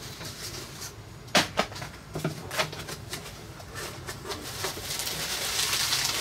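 Cardboard box and packing being handled: a few sharp knocks and paper rustles, then the crinkling of bubble wrap as a wrapped part is lifted out of the box near the end.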